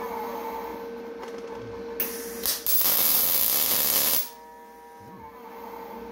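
Gasless flux-core MIG welder arc on steel plate: two brief arc strikes about two seconds in, then a steady loud hiss of a short weld run for about a second and a half that cuts off suddenly.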